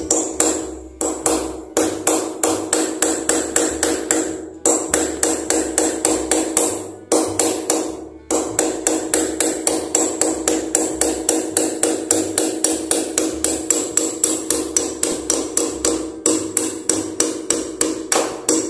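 Hammer tapping a steel nail into a very hard wall with light, rapid strikes, about four a second, each with a ringing metallic tone, in several runs broken by short pauses. The strikes are kept gentle so the nail goes in without bending.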